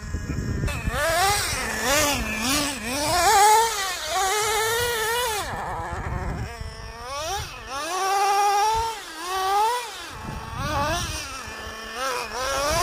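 Traxxas Nitro Slayer's two-stroke nitro glow engine revving up and down over and over, each rev rising and falling within a second or two, with short drops back toward idle about halfway through and again near the end.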